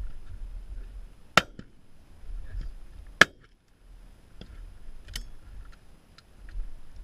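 Two sharp cracks about two seconds apart, then a few lighter clicks from side-by-side shotguns being handled and passed between shooter and loader. A low wind rumble on the microphone runs underneath.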